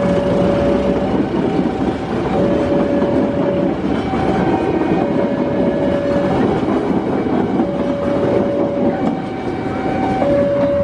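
Train passing over a level crossing with a steady rumble and wheel clatter, while the crossing's electronic warning alarm keeps sounding its two alternating tones, switching about every second and a half.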